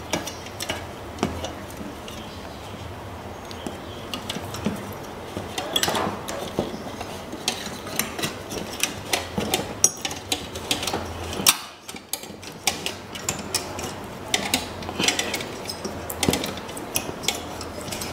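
Irregular clicks, taps and light scraping of stiff 2.5 mm copper wire being threaded into an opened inverter welder, knocking against its metal casing and internal parts.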